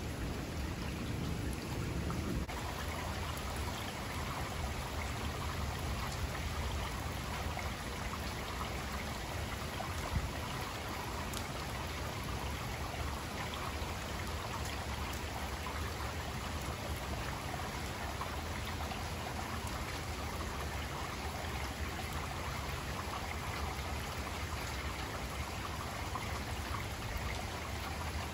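Steady rain falling during a light thunderstorm. A low rumble of thunder trails off and stops about two seconds in.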